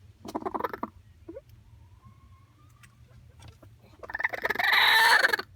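Broody hens on the nest calling. A short call comes in the first second, then about four seconds in a loud, harsh squawk lasts over a second.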